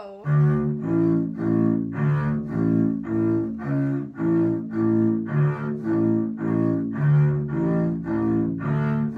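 Double bass bowed in separate, evenly paced quarter notes, about two a second. It plays a simple beginner line built mostly on the open D and A strings, grouped in threes.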